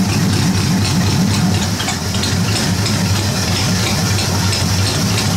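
Old tractor engine idling slowly and steadily, turned down about as low as it will go, around 350 rpm by the owner's guess, and not yet fully warm.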